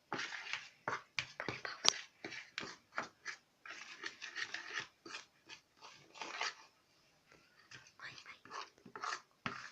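A fork stirring and scraping through a sticky flour-and-dish-soap slime dough in a bowl, making a run of irregular clicks and scrapes.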